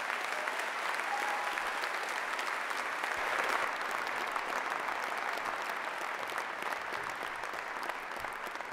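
Audience applause: many people clapping steadily. It swells at the start and begins to thin out near the end.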